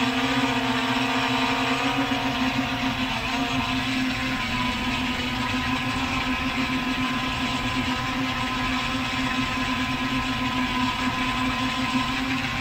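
Multirotor drone's motors and propellers humming steadily in flight, a strong buzzing drone note whose pitch shifts slightly in the first couple of seconds as the motors adjust.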